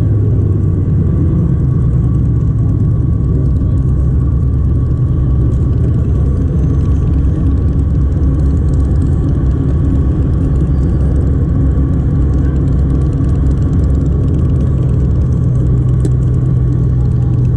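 Steady low rumble of diesel truck engines running, with a constant engine hum.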